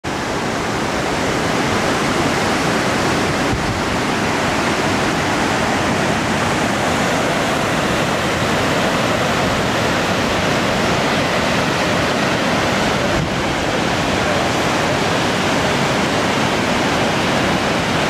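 Benham Falls on the Deschutes River: whitewater cascading through a rocky channel, a steady, unbroken rush of water.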